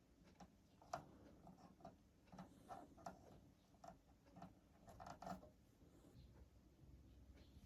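Near silence: faint room tone with a dozen or so light, scattered clicks and taps.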